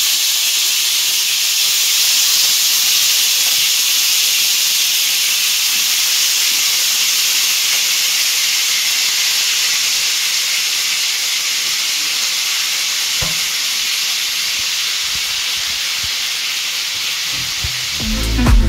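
Marinated chicken pieces sizzling in hot oil in a frying pan, a steady hiss throughout, with one light tap about 13 seconds in.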